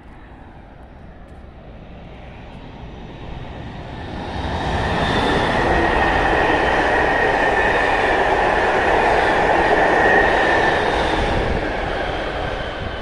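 Intercity Direct passenger train passing at speed. The rush of wheels on the rails builds about four seconds in and holds loud with a steady high whine on top, then eases off near the end.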